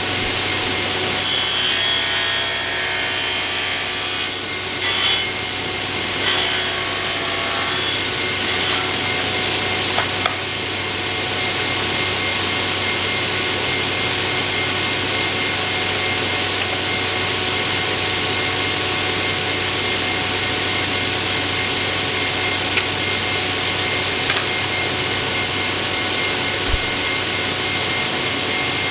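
Large workshop circular saw cutting 45-degree mitres in wooden boards. The cutting noise rises and falls unevenly for the first several seconds, then the saw runs on steadily.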